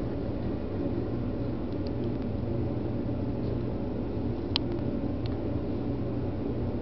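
Steady low rumble and hum of background noise, with one short sharp click about four and a half seconds in.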